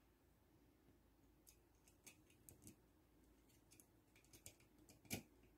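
Near silence with faint, scattered small clicks and ticks from a round panel meter and plastic switch faceplate being handled and fitted together; the loudest click comes about five seconds in.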